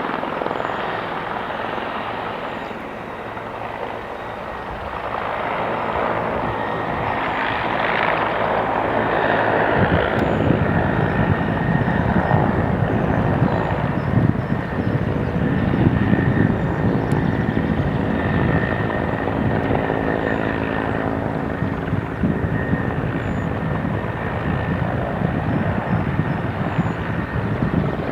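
Transport helicopter running, its rotor and turbine engines making a continuous din that grows louder about ten seconds in, with a thin high whine over it through the middle.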